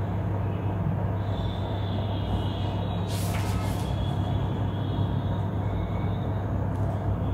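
Steady low electrical-sounding hum of background noise, with a short hissing rustle a little over three seconds in.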